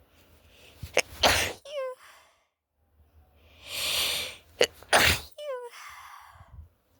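A woman sneezing twice. The first sneeze comes about a second in. A long audible in-breath follows, then a second sneeze around five seconds in. Each ends in a short vocal sound that falls in pitch.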